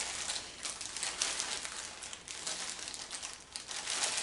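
Packaging crinkling as it is handled: a run of irregular light crackles.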